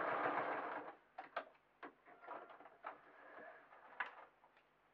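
Electric sewing machine running as it stitches felt, stopping about a second in. Then scattered clicks and rustles of the fabric being handled, with one sharper click near the end.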